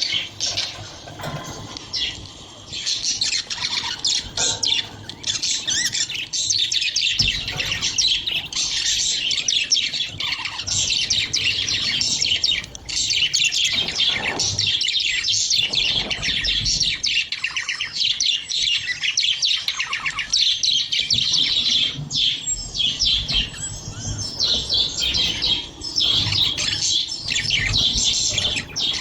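Budgerigars chattering and chirping without a break, many quick calls overlapping.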